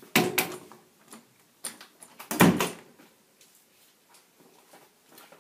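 A few sharp knocks and clatters, the loudest about two and a half seconds in, with faint ticks after.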